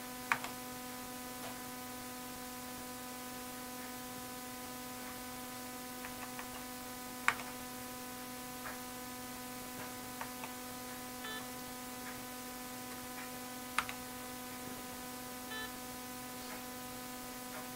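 Steady electrical hum with a few sharp key clicks from the Apple IIe keyboard, the loudest just after the start, about halfway through, and about three-quarters of the way through, with fainter ticks in between.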